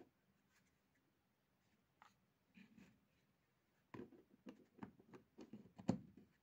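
Hard plastic clicking and knocking as a camera battery charger is handled and a battery is fitted into it: a few faint taps about two seconds in, then a quick run of clicks and knocks from about four seconds in, the loudest near the end.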